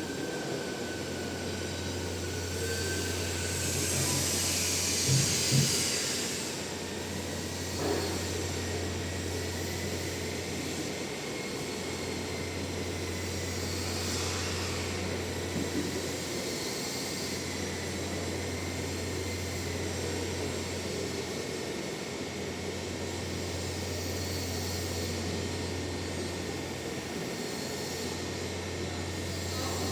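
Electric machinery running steadily with a low hum and a thin high whine, with a louder hiss for a couple of seconds about four seconds in and a few sharp clicks.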